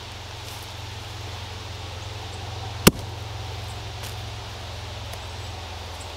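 A square concrete paver set down onto a bed of crushed gravel, giving one sharp knock about three seconds in, over a steady low rumble.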